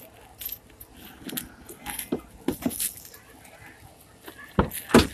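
Metal clinking and jingling of a police officer's keys and gear, with scattered sharp clicks, then a few louder knocks near the end as he works at the patrol car.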